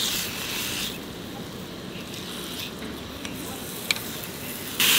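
A slice of marinated meat sizzling on a hot sandwich-press plate over a gas stove. The sizzle is strong as the meat goes down, settles lower, and flares loudly again near the end as the tongs work the meat. There is a single sharp metal tap from the tongs against the pan just before four seconds.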